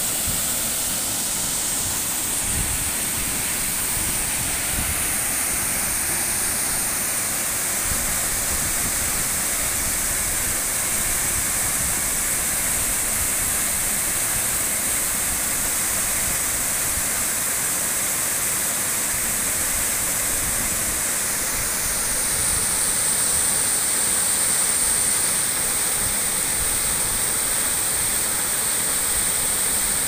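Waterfall pouring over a rock ledge into a pool: a steady rush of falling and churning water, swelling slightly a little past the middle.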